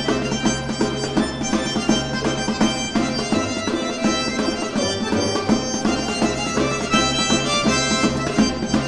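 A folk instrument orchestra playing: quick plucked notes from small lute-type string instruments over held notes and a bass line.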